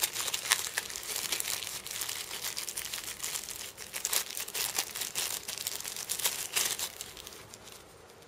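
Thin clear plastic bag crinkling and rustling in the hands as a pair of earphones is worked out of it, a dense crackle that dies down near the end.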